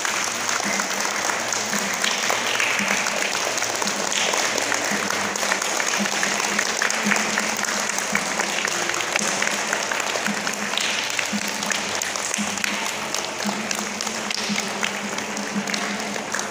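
A group of schoolchildren clapping steadily, without a break, to greet the ceremonial flags as they are carried in.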